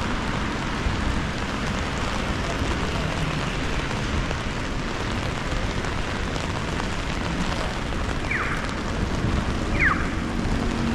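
Steady rain pattering on an umbrella overhead and on the wet street. Late on, a short falling chirp repeats about every second and a half.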